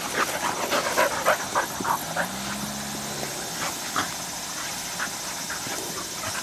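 A young hunting dog panting rapidly close by, the breaths thinning out after about two seconds. A low steady hum sounds briefly about two seconds in.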